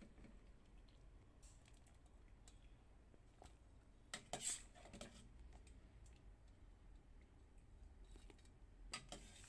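Very faint clicks and light knocks of a stainless steel slotted ladle against steel pots as boiled cassava chunks are scooped out and dropped in to drain, with the clearest knocks about four seconds in and near the end.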